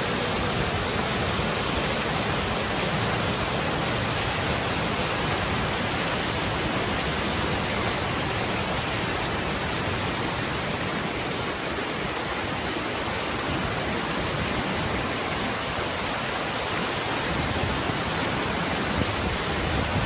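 Waterfall and white-water stream rushing: a steady, even hiss of falling water.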